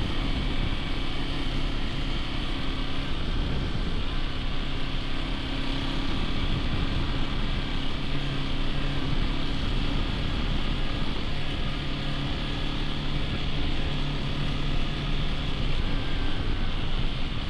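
Hero XPulse 210's single-cylinder engine running steadily under way, its pitch shifting a few times, over a constant rush of wind and road noise.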